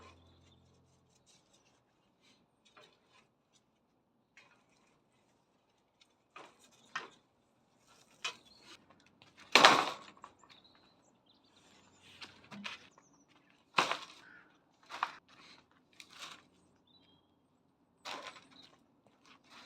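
Music ending, then irregular short knocks, clatters and rustles from outdoor handling work, the loudest about ten seconds in, with a faint bird chirp or two.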